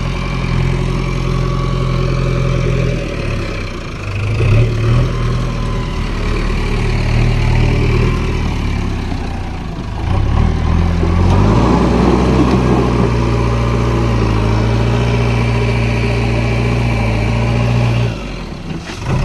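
Heavy machinery's diesel engine running steadily, its pitch rising and falling as it revs up under load a few times, with a brief drop in level near the end.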